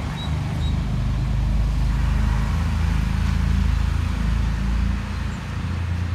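A steady low rumble with slight ups and downs.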